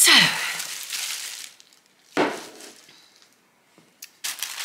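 Tissue paper rustling and crinkling as a wrapped item is handled and unwrapped, in short spells: a long one at the start, a brief one a little after two seconds, and again near the end, with quiet gaps between.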